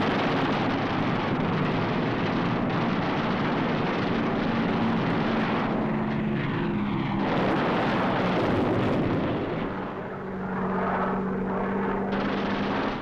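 Propeller fighter plane engines droning steadily on an old film soundtrack, with a brief dip in level about ten seconds in.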